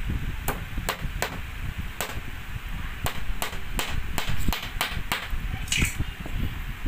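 Hammer driving steel nails into a wooden board: about a dozen sharp taps, coming faster and closer together around the middle.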